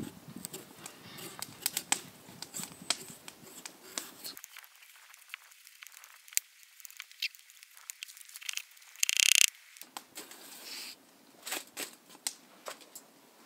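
Small knife shaving the skin off a raw sweet potato, a run of small scrapes and clicks as the peelings drop onto the wooden table. A brief, louder rustle comes about nine seconds in.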